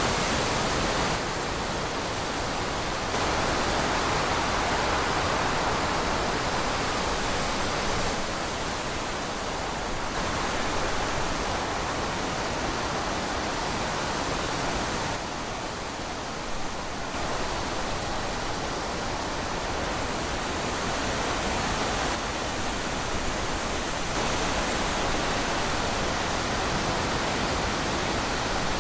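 Wind rushing steadily, its level swelling and easing every few seconds, with a few sudden shifts in loudness.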